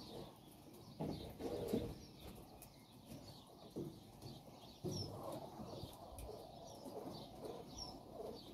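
Japanese quail calling softly: short, faint high chirps scattered through, over low rustling that swells about a second in and again near five seconds.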